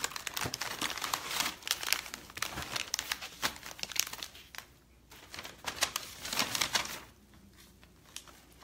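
Snack-bar wrapper crinkling and crackling in the hands in quick, irregular bursts, dying down about seven seconds in.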